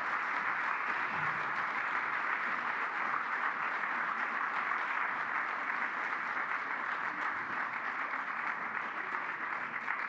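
Audience applauding steadily, a dense wash of many hands clapping that eases slightly near the end.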